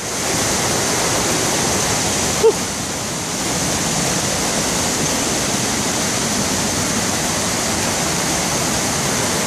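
Rain-swollen stream and waterfall rushing steadily, raging after days of rain, with one brief knock about two and a half seconds in.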